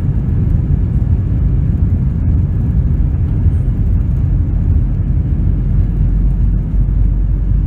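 Cabin noise of a jet airliner heard from a seat over the wing during the takeoff roll: the engines at takeoff thrust and the wheels rumbling on the runway, a loud, steady, deep noise.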